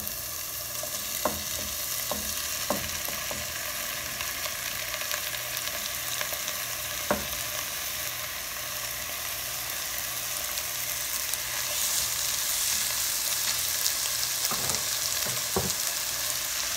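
Diced tomato and chopped onion, garlic, green chiles and cilantro sizzling in a frying pan as the tomato is scraped in from a plate and stirred. A few sharp clicks of utensil against pan sound through, and the sizzle grows louder in the last few seconds.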